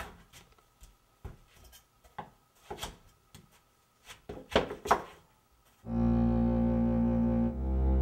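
A few scattered soft knocks and clicks of kitchen work at a counter, then about six seconds in a low bowed-string score of cello and double bass comes in with long held notes, moving to a new chord about a second and a half later.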